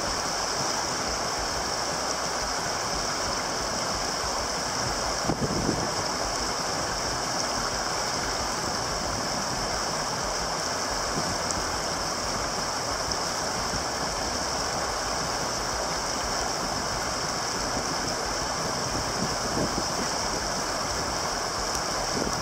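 Whitewater rapids rushing steadily: an even, continuous wash of water noise. A short bump stands out about five seconds in.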